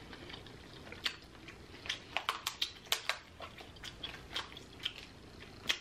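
Close-up eating sounds: chewing, with a run of short sharp clicks and cracks, densest about two to three seconds in, as the shell of a boiled lobster claw is broken open by hand.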